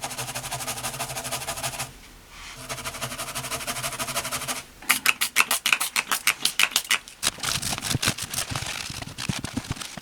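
A brush scrubbing the freshly soldered joints on the back of a motherboard, cleaning them. It goes in quick rapid strokes with a short pause about two seconds in, then in louder, separate strokes from about five seconds in.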